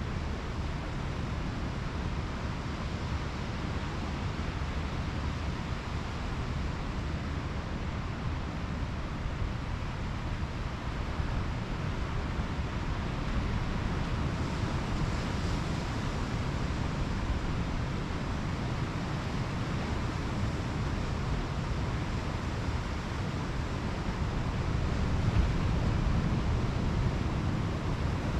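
Pacific Ocean surf washing onto the beach, with wind rumbling on the microphone. A wave's wash swells about halfway through, and the wind gusts harder near the end.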